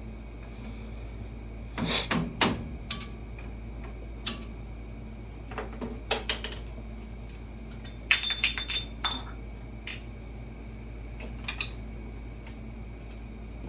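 Metal objects being handled: scattered clinks and clanks, in two busy clusters about two seconds in and about eight seconds in, the later one with a brief ringing note, over a steady low hum.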